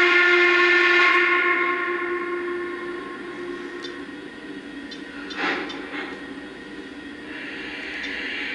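Lionel Legacy Norfolk & Western Y6b model steam locomotive's onboard sound system blowing its multi-note steam whistle: one loud blast that tails off over about three seconds. A short hiss follows about five seconds in, and a softer hiss near the end.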